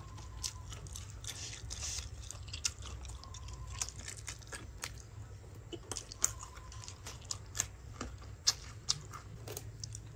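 A person chewing and biting fried pig intestine close to the microphone, with irregular crunches and mouth clicks.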